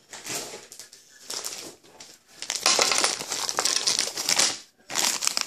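Crinkling and rustling of a plastic bag being handled, in uneven bursts, with light clicks of small wooden toy-car tires spilling out.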